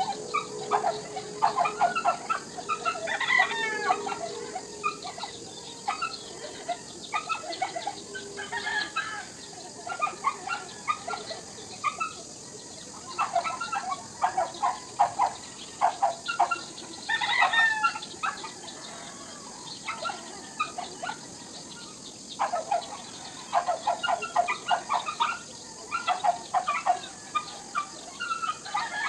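Bird calls: clusters of short chirps with a few longer rising-and-falling calls, over a steady high insect drone.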